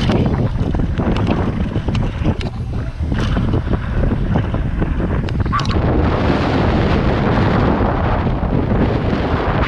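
Wind buffeting the microphone over the clatter and rattle of a mountain bike riding fast down a rough dirt trail, with many sharp knocks from the bike and tyres. About six seconds in the knocks mostly stop and a steadier rush of wind takes over.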